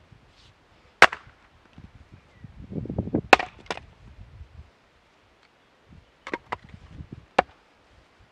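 Gränsfors Bruks splitting maul striking and splitting firewood on a chopping block: a series of sharp cracks of steel into wood, the loudest about a second in, then two close together a little after three seconds and three more near the end.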